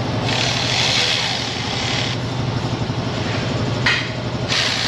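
A handheld power driver whirs in two spells of about two seconds each, spinning out the small Torx screws that hold a radiator fan. A sharp click falls between the spells. A steady low hum runs underneath.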